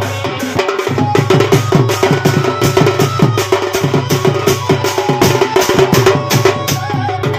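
Fast, loud drumming on a large double-headed barrel drum (dhol) beaten with a stick, over a steady low drone.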